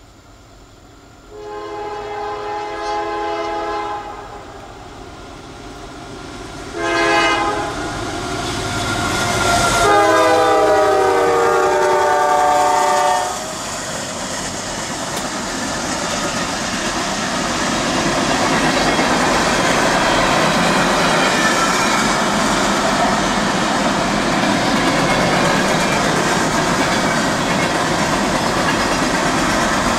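Freight train's diesel locomotive sounding its multi-chime air horn for a grade crossing: a long blast, a short one, then a longer one. The train then rolls past with a steady, building rumble and wheel clatter on the rails.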